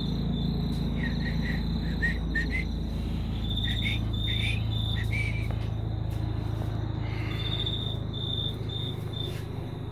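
Crickets chirping in steady pulsed trains, with a few short rising chirps in the first half, over a steady low hum.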